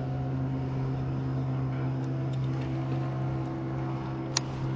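Motorboat engine running with a steady low hum, neither rising nor falling. A single sharp click sounds about four seconds in.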